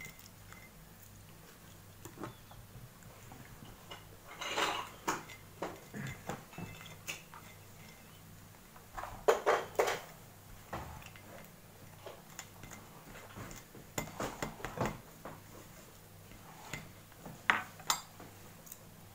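Table knife scraping and clinking against a plate and a bread roll as butter is spread on it, in short scattered bouts; the loudest cluster comes about nine to ten seconds in.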